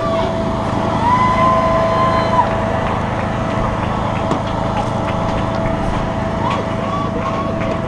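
A steady mechanical hum with a constant high-pitched tone running through it, and faint distant voices calling.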